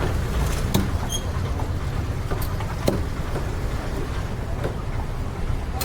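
Steady low rumble of busy market background noise, with a few sharp knocks scattered through it.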